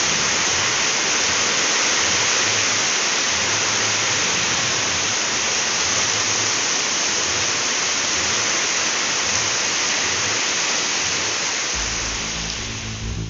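Heavy rain pouring down in a steady hiss; music comes in near the end.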